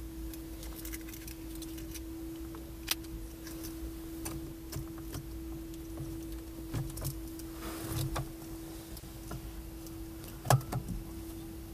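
Car keys rattling and clicking at the ignition, with a sharper click about ten and a half seconds in as the key is turned to switch the ignition on. A steady faint hum runs underneath.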